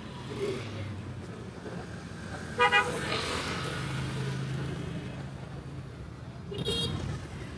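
Vehicle horns sounding over street traffic: a short double toot about two and a half seconds in, the loudest sound, and another brief toot near the end.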